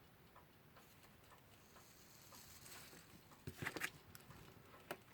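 Faint metal clicking and scraping of a small screwdriver tip against a Westclox alarm clock movement as it is worked under a stuck cannon pinion, with a short cluster of louder clicks about three and a half seconds in and one more sharp click near the end.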